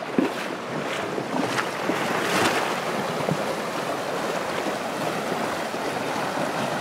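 A rushing river running steadily, with horses wading and splashing through the current, a few short splashes in the first few seconds. Wind buffets the microphone.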